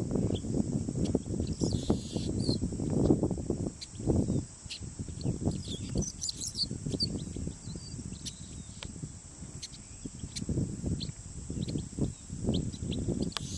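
Chestnut-capped blackbird calling with short high chirps, a quick run of them about six seconds in and more near the end. Under them runs a louder low gusty rumble and a steady high hiss.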